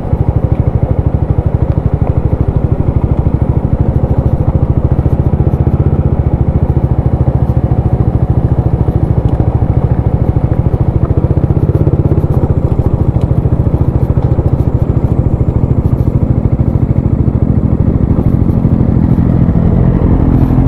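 Motor scooter engine running steadily at low speed while ridden over a rough gravel and dirt track, with light crackle and clatter from the loose stones.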